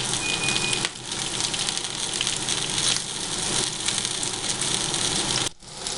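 Food frying in a hot pan, a steady dense sizzle that breaks off for a moment near the end.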